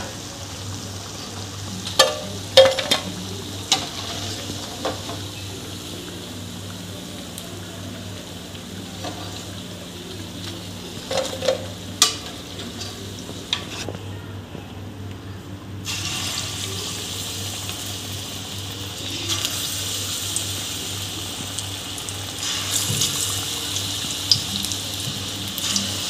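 Buckwheat-flour pakoras sizzling in hot ghee in an aluminium kadhai, with a steel perforated skimmer clinking against the pan a few times as they are lifted out, around two to four seconds in and again near eleven seconds. After a short break halfway through, the sizzling comes back louder as a fresh batch fries.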